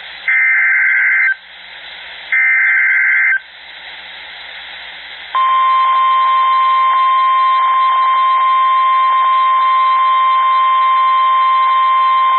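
NOAA Weather Radio Emergency Alert System broadcast: two short, harsh, buzzy SAME header data bursts about a second apart, with radio hiss between. About five seconds in, the steady 1050 Hz warning alarm tone starts and holds, signalling the severe thunderstorm warning that follows.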